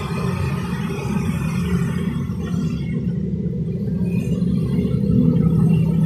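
Small single-cylinder four-stroke engine of a CD70-type 70cc motorcycle idling steadily with freshly adjusted tappets, a little louder near the end.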